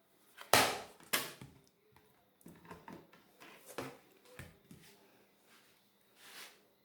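Irregular knocks and clicks of a tablet's plastic back cover being handled and set onto the tablet, the two loudest about half a second and a second in, then lighter taps and a soft rustle near the end.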